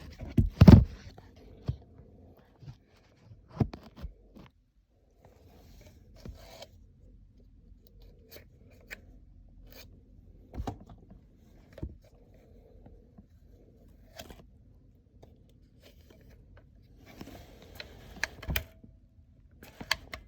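Scattered sharp clicks and knocks with faint scraping and rustling between them. The loudest are in the first second and about 18 seconds in.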